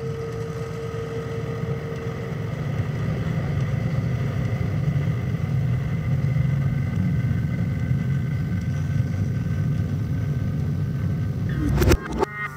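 A steady low rumble with a few faint held tones above it, growing slowly louder. Near the end a sharp hit cuts in and music begins.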